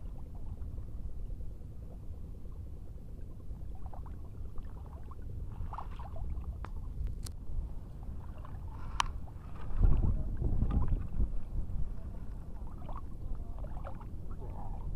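Steady low rumble of wind and sea water on the microphone of a camera worn by someone wading, swelling louder about ten seconds in, with a couple of faint sharp clicks from handling the fishing tackle.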